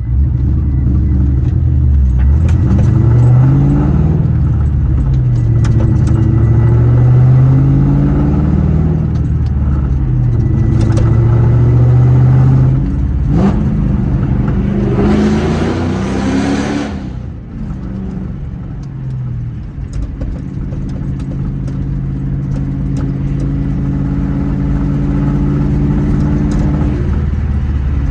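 New Edge Ford Mustang engine being revved up and down again and again. A sharp click comes about halfway through, then a hissing rush of about two seconds, and the engine settles into a steady idle.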